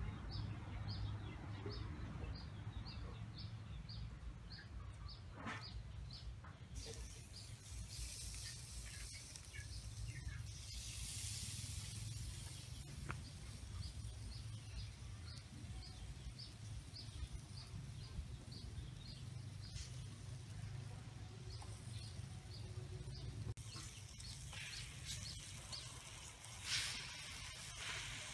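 Outdoor ambience: a short, high chirp repeated evenly about three times a second over a steady low rumble, with stretches of soft hiss about ten seconds in and again near the end.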